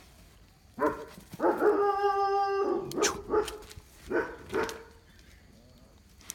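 A dog whining: a brief cry, then one long held cry of over a second, followed by several shorter cries.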